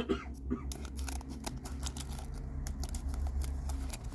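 Scattered light clicks and taps of a pair of scissors and a foil trading-card pack being handled, over a low steady hum.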